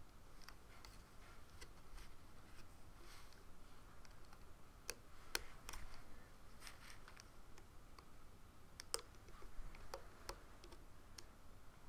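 Plastic loom hook clicking against the Rainbow Loom's plastic pins as rubber bands are pulled and looped: faint, irregular ticks, a few sharper than the rest.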